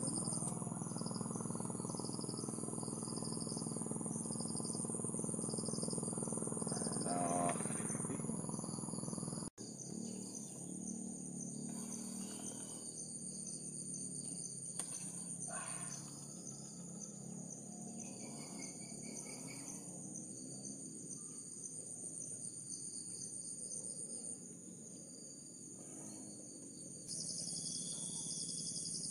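Insects shrilling in a steady high chorus, with a second insect or bird chirping in an even pulse through the first eight seconds or so. The sound drops out briefly about nine seconds in, then the shrilling carries on.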